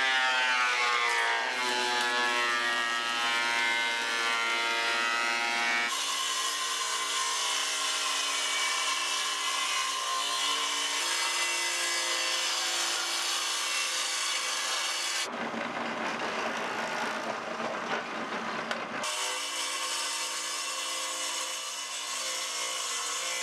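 Woodshop power tools, including a benchtop thickness planer, running and cutting boards. For the first several seconds an electric motor's pitch sinks steadily. Then the machines run with a steady pitched hum, broken for a few seconds about two-thirds of the way through by harsher, rougher cutting noise.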